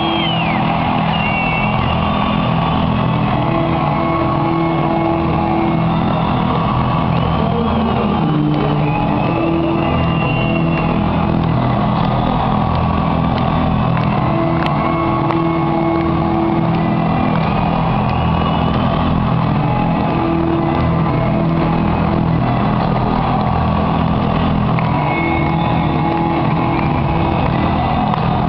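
Loud entrance music over an arena's sound system, recorded from the stands and heavily muddied. Held low notes come and go every few seconds, with crowd noise mixed in.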